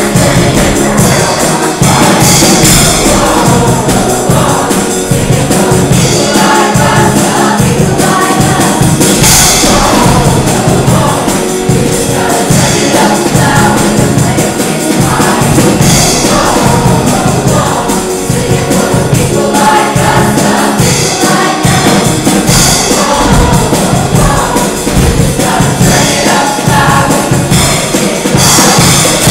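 Show choir singing over loud accompaniment, continuous and rhythmic.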